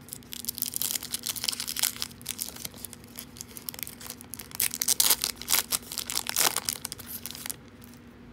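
Foil-lined trading-card pack wrapper being torn and peeled open by hand, a dense run of crinkling and tearing. It is loudest a little past halfway and stops shortly before the end.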